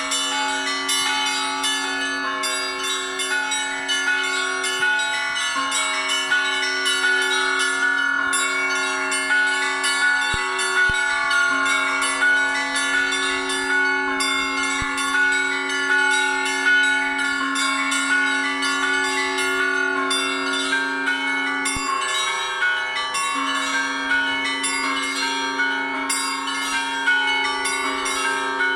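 Russian Orthodox church bells ringing in a continuous peal: smaller bells struck rapidly, several times a second, over the steady hum of larger bells ringing on underneath.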